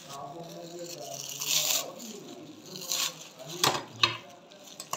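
Plastic bubble wrap crinkling and rustling in short bursts as it is pulled off a small boxed item, with a few sharp crackles in the last two seconds.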